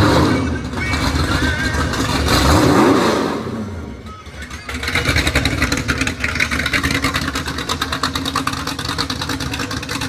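Car engine revving, its pitch rising and falling in the first few seconds, then running with a fast, even pulse after a brief lull.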